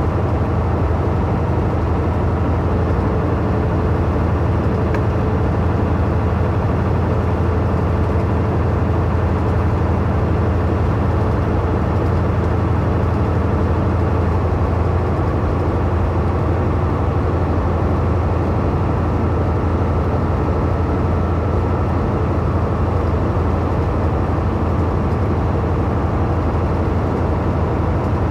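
Heavy truck cruising at steady highway speed, heard from inside the cab: a constant low diesel engine drone under an even rush of tyre and road noise.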